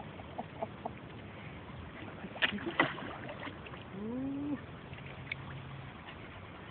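Hooked mirror carp splashing and thrashing at the water's surface, with the sharpest splashes about two and a half seconds in. A short rising whine follows a little past the middle.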